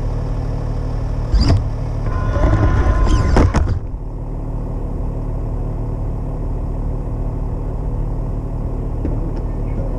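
Electric motor and gears of an RC rock crawler whining as it drives, louder for about two seconds starting about a second and a half in, with scraping ticks. A steady low hum runs underneath throughout.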